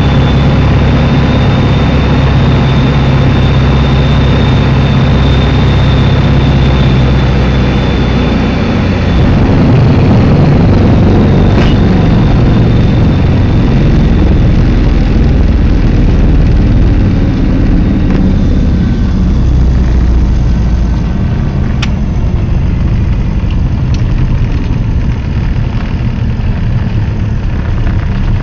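Cabin noise of a Socata TB20 Trinidad, its six-cylinder Lycoming IO-540 and propeller running at low power on landing. About a third of the way in, the steady drone gives way to a rougher rumble as the wheels roll on the runway, and it grows quieter after about two thirds as the aircraft slows to taxi, with a couple of brief clicks.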